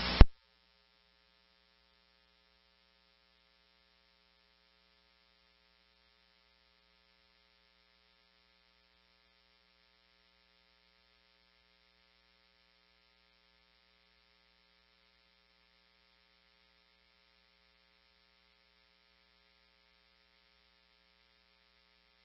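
A short burst of radio static as the scanner's squelch closes. Then near silence with only a faint steady electrical hum.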